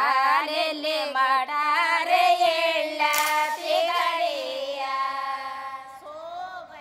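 Soundtrack song: a high solo voice singing a slow melodic line with wavering held notes, fading away near the end.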